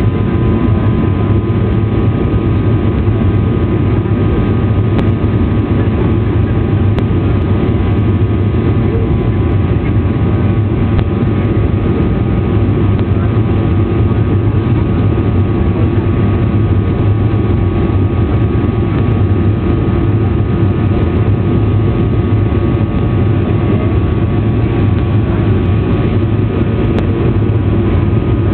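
Airliner cabin noise during flight: a steady deep hum from the engines and rushing air, with a few steady whining tones over it.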